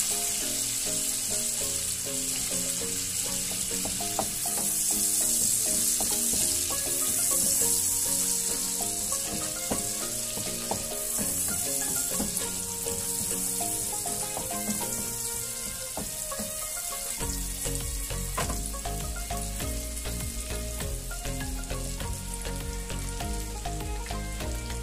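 Butter melting and sizzling in a hot frying pan over chopped garlic and onion, stirred with a wooden spatula; the sizzle is loudest in the middle.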